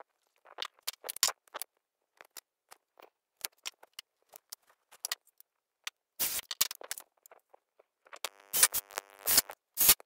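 Scattered small clicks and knocks of wood and tools being handled, with a DeWalt cordless drill driving pocket-hole screws in two short runs, about six seconds in and again, louder, near the end.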